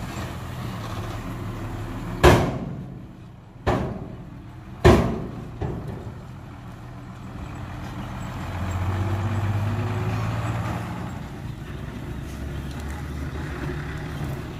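Dump truck diesel engine running, broken by four loud sharp bangs between about two and six seconds in, the last one weaker. The engine then swells louder for a couple of seconds before settling back.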